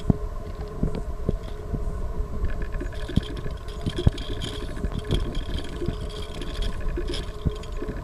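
Small plastic globe light bulbs with metal screw bases clicking and scraping on asphalt as a hand sets them down and shuffles them around. Under this runs the steady low rumble of a car engine.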